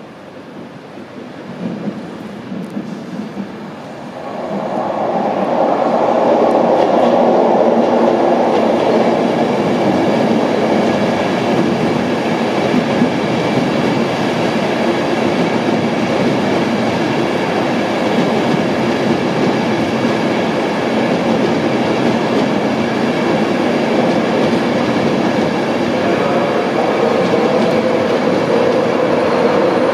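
Long express passenger train running along the platform close by. It grows loud about four seconds in and then stays loud and steady, with a steady whine of several tones over the rumble.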